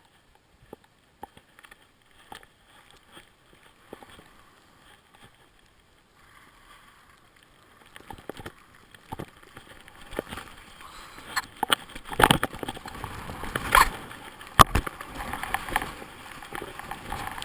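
Skis hissing and scraping over packed snow as the skier sets off downhill: faint at first, growing louder about eight seconds in, with sharp knocks and clatter through it.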